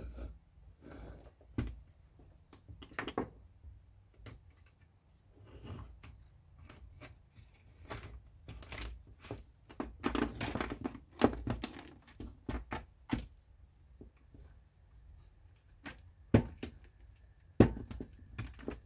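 Irregular clicks and knocks of small plastic and metal fuse box parts being handled and pressed into place, with a few sharper knocks near the end.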